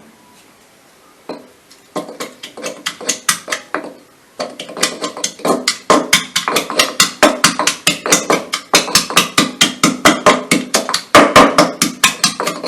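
Rapid pounding as chopped garlic, ginger and lemon are crushed, several sharp knocks a second. A single knock comes about a second in, quick strokes start at about two seconds, pause briefly near four seconds, then keep up steadily.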